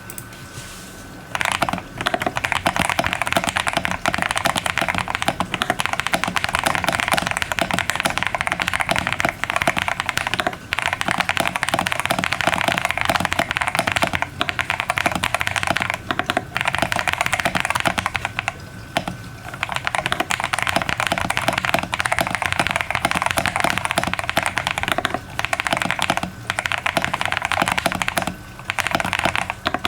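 Fast, continuous typing on a BBOX60 60% custom mechanical keyboard with lubed Akko CS Silver linear switches, a polypropylene plate and keebtape on the back of the PCB. The keystrokes come as a dense clatter starting about a second and a half in, broken by short pauses now and then.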